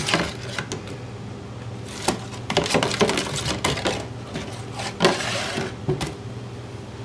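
A cat pawing and scratching at a cardboard 12-pack box after an ice cube inside it: scrapes, knocks and rattles in bursts, the busiest stretch from about two to four seconds in and another just after five seconds. A steady low hum runs underneath.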